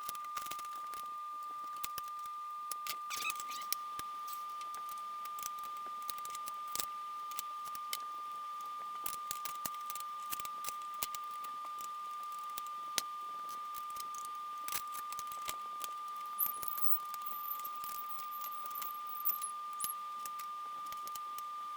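Irregular light clicks and metallic taps of small hardware being handled and fitted by hand, over a steady high-pitched tone.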